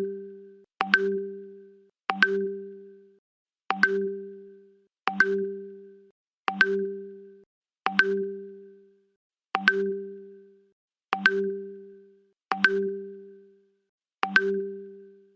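WhatsApp Web notification tone repeating about every second and a half, some ten times: each a quick double tap followed by a short low tone that fades out.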